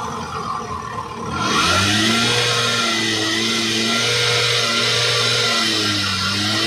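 Two-stroke auto rickshaw engine catching about a second and a half in, then running steadily at a fast idle.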